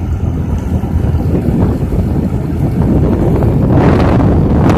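Wind rushing over a phone microphone on a moving motorcycle, above a steady low rumble of engine and road. The wind rush swells louder near the end.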